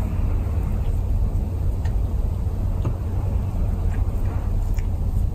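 A steady low rumble runs throughout, with faint soft clicks every half second or so from a cat licking its paw.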